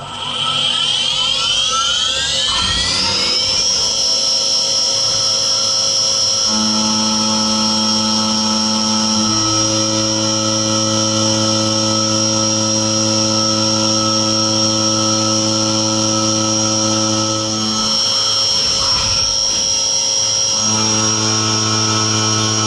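Spindle of a Skyfire SVM-1 mini vertical machining centre spinning up, a rising whine over the first few seconds that settles into a steady high whine. Then the end mill cuts 6061 aluminium, adding a lower hum that starts, drops out briefly and comes back near the end.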